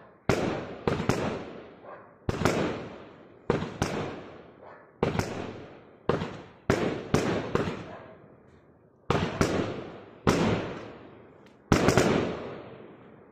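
Brightsky 'Poseidon' 19-shot firework barrage firing its shots one after another: more than a dozen sharp reports, each followed by a fading tail, coming in quick pairs and singles with a short pause about eight seconds in.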